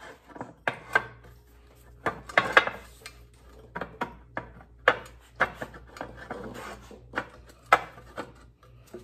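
Irregular metal knocks and clanks, about a dozen and unevenly spaced with a cluster about two seconds in, from a lower control arm's shaft and rubber bushings being handled and worked into place.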